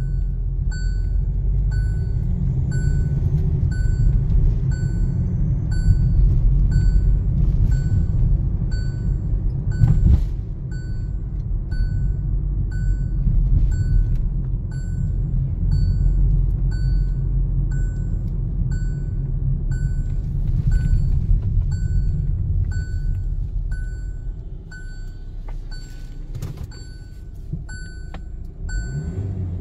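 Hyundai Tucson diesel engine running, heard from inside the cabin as the SUV rolls slowly, a steady low rumble that quietens about 24 seconds in as it comes to a stop. A short electronic beep sounds about once a second throughout.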